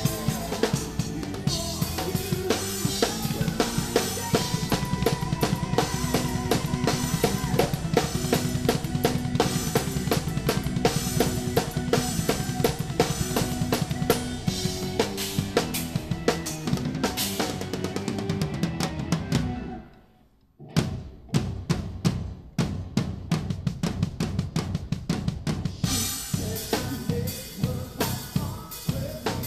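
Drum kit played live with a progressive metal band, the drums up front: bass drum, snare and cymbals driving dense rhythm. About two-thirds of the way through, everything stops dead for about a second, then comes back as separate stop-start hits before the full beat resumes near the end.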